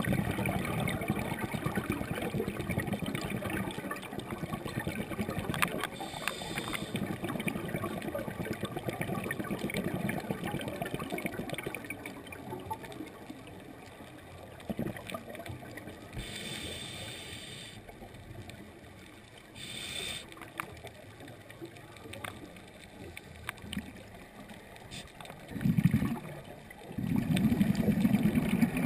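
Water gurgling and sloshing, with two louder low bursts near the end.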